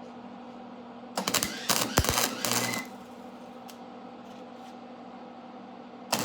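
MIG welder laying a short weld of about a second and a half, the arc crackling and popping, with the welding machine's steady hum underneath; a second burst of arc crackle starts right at the end.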